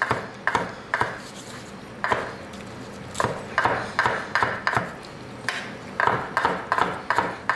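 Chef's knife chopping cooked lobster meat on a wooden cutting board: uneven runs of sharp knife-on-wood taps, a few a second, with short pauses between runs.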